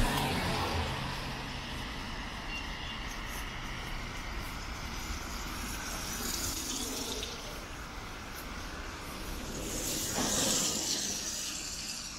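Traffic on a wet street: a vehicle's engine hums past at the start, then tyres hiss on the wet road as vehicles pass, the hiss swelling twice, loudest about ten seconds in.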